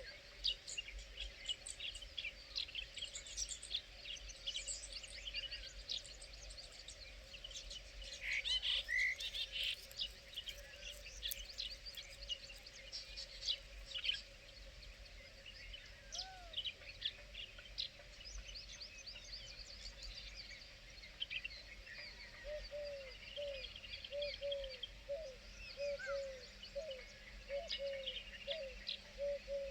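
Several small birds chirping and twittering, with a denser, louder flurry about a third of the way in. From about two-thirds through, a lower short note repeats steadily, roughly once every second.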